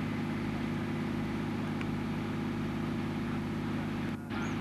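A steady low mechanical hum made of several constant tones, broken by a brief dropout near the end.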